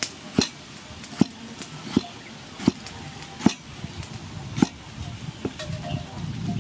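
A cleaver slicing through tomatoes and knocking on a wooden chopping board, about seven sharp knocks spaced roughly three-quarters of a second apart, then fainter ones near the end.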